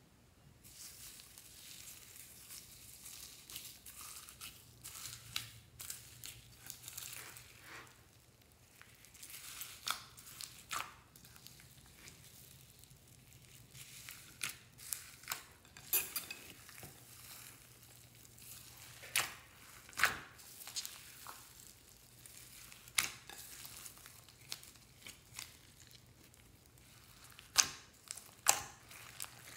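Clear slime and small foam beads being mixed and squeezed together by hand in a glass bowl. The beads crunch and crackle irregularly, with scattered sharp clicks and pops, the loudest near the end.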